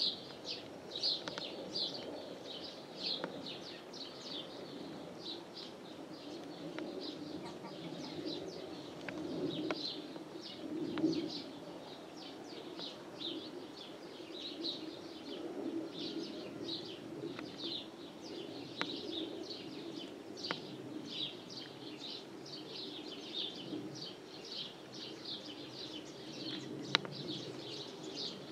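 Birds chirping, many short calls a few to the second throughout, over a steady low hum.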